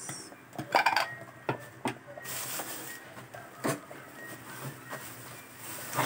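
Kitchenware knocking and clinking, a few separate light impacts: a quick cluster about a second in, then single knocks near the middle and one more at the end.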